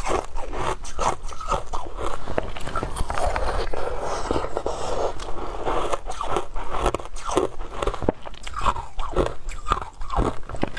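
Shaved ice with passion fruit pulp being bitten and chewed, a dense, unbroken run of small crunches and crackles.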